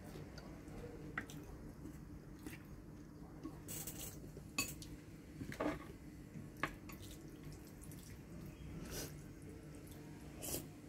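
Quiet eating sounds: scattered soft clicks and taps of wooden chopsticks against a ceramic bowl and small mouth noises while eating spaghetti, over a faint steady low hum.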